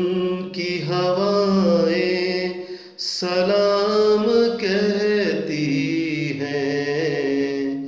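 Singing without words: long held melodic notes with a wavering pitch, breaking off briefly about three seconds in, then resuming.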